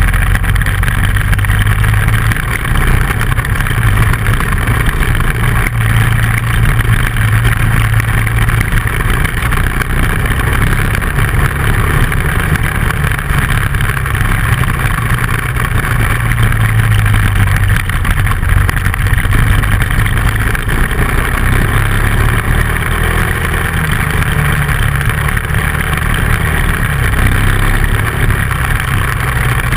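Dual-sport motorcycle engine running while riding along a dirt road, its low note swelling and easing a little with the throttle, mixed with steady wind and road noise on the bike-mounted microphone.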